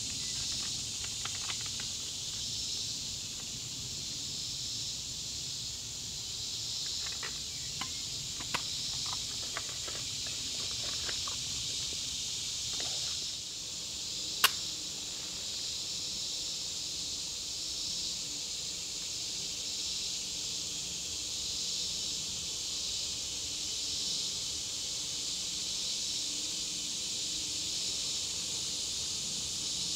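Steady chorus of insects buzzing in summer woods, rising and falling in a regular pulse. A few small clicks come in the first half, and one sharp click about halfway through as stainless steel camp stove parts are handled.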